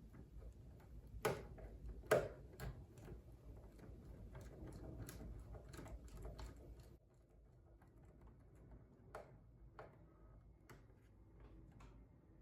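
Faint clicking and tapping of hand work on a wiring terminal while the low-speed wire is connected: two sharper knocks about a second in and two seconds in, then a run of light clicks that thins out to a few isolated ticks after about seven seconds.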